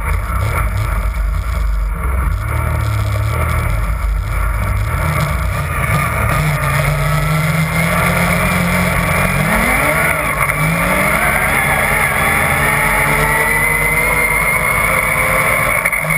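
Yamaha Nytro snowmobile's four-stroke triple engine running at speed, heard close from the rear bumper along with track and snow noise. Its pitch climbs twice around the middle, then holds steady with a slowly rising whine.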